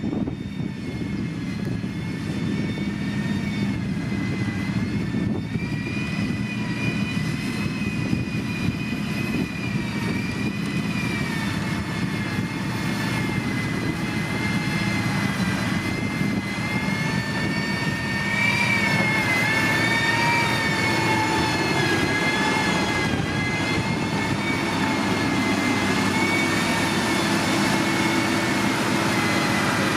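Heavy road-construction machine's diesel engine running steadily, a high wavering whine over its low engine note, growing a little louder about two-thirds of the way through.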